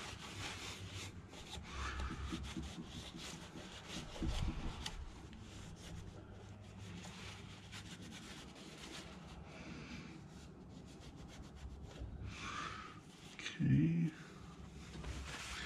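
Shop towel wet with brake cleaner rubbing and scrubbing over the rocker-cover gasket surface of the generator's three-cylinder Isuzu diesel cylinder head, cleaning it for the new gasket. A short low hum near the end is the loudest moment.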